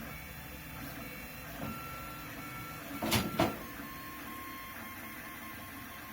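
Lulzbot TAZ 6 3D printer running, its stepper motors whining at steady pitches that shift as the moves change. Two sharp knocks come close together about three seconds in.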